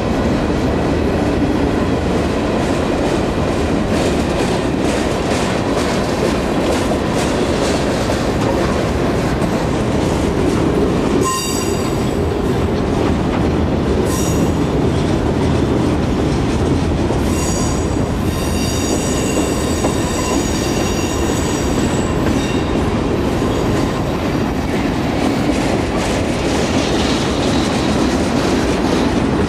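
Freight cars of a mixed freight train rolling past close by: a steady, loud noise of steel wheels on the rails. Around the middle comes a few seconds of high-pitched wheel squeal, then a longer stretch of it.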